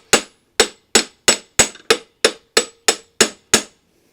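Small hammer striking a steel fender washer clamped in a vise, about three sharp metallic blows a second, each ringing briefly, bending the washer over into an angled latch. The blows stop shortly before the end.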